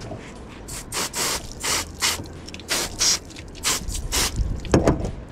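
Garden hose pistol-grip spray nozzle squeezed in about nine short sprays of water onto a cleaning table, with a louder thump near the end.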